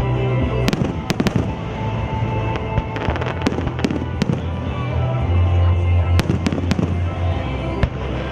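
Fireworks going off in quick clusters of sharp bangs and crackles, over music with a heavy bass line.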